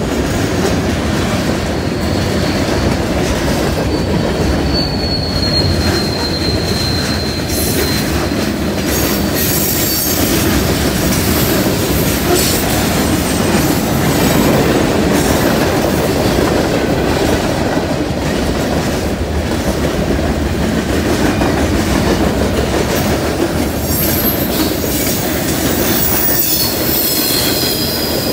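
Norfolk Southern freight train's cars rolling past over a grade crossing: a steady rumble and clatter of steel wheels on rail. A thin, high wheel squeal comes in about four seconds in, slides slightly down in pitch and fades a few seconds later, and fainter squeals return near the end, typical of wheel flanges on a tight curve.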